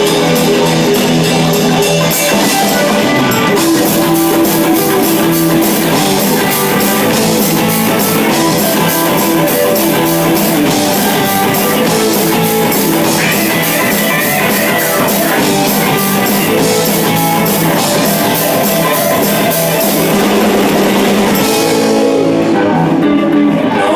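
Instrumental rock music with electric guitar and a drum kit, played steadily.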